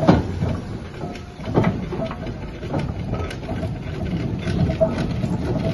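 Steam traction engine driving slowly past: its engine and gearing give irregular knocks and clanks over a steady low rumble, with sharp knocks near the start and about a second and a half in.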